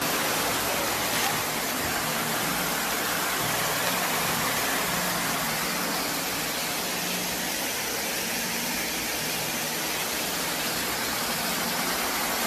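Steady rushing noise of floodwater from a burst water main, with a faint low steady hum underneath.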